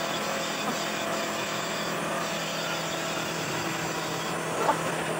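Steady mechanical hum of workshop machinery running, holding several fixed pitches, with a single light clink near the end.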